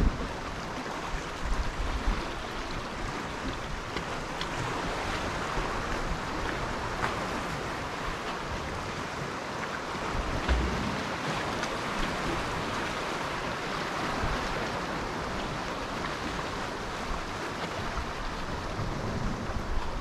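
Sea surf: a steady rush of waves breaking and washing along the shore, with a few gusts of wind buffeting the microphone.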